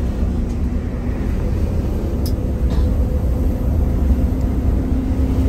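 A large vehicle's engine running at a steady speed: a deep low rumble with a steady hum on top.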